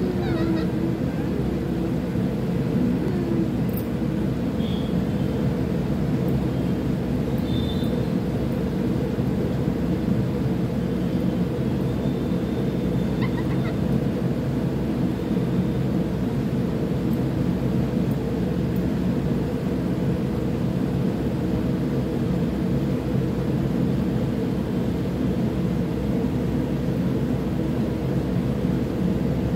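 A steady, low mechanical hum that does not change in pitch or level. A few faint, short, high-pitched chirps sound over it about five and eight seconds in.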